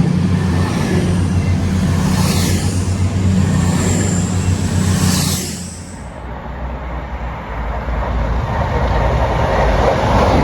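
Class 222 Meridian diesel multiple unit passing at speed: a steady diesel engine drone with a thin high whine that drops away about six seconds in as the train goes by, followed by a swelling rush of air and rail noise.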